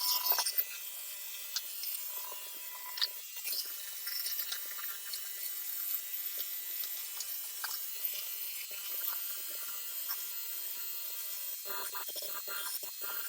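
Steady faint machine hum with scattered light clicks and taps of small parts and tools being handled.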